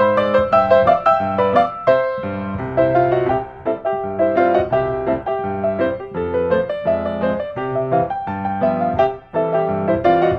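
Background piano music: quick, many-note playing over a bass line.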